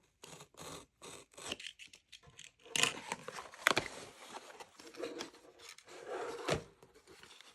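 Microphone-kit box being unboxed by hand: irregular scraping, rubbing and tearing of the packaging, with a few sharp clicks, the loudest about three and a half seconds in.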